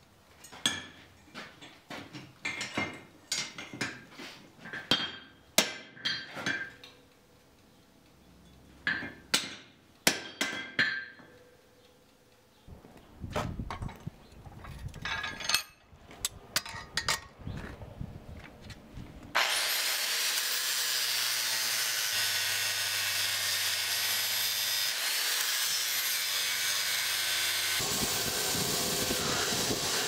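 Hand hammer striking the steel axe head held in tongs over the anvil, in uneven bursts of blows. Then quick scraping strokes on the axe head clamped in a vise. About two-thirds of the way through, a belt grinder starts with a sudden steady whir, and near the end the steel is pressed against the belt and ground.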